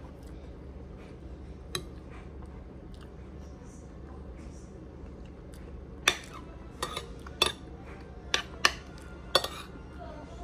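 Clinks of eating utensils and crab shell against a dinner plate: one click early, then a quick run of about six sharp clicks in the second half, over a steady low hum.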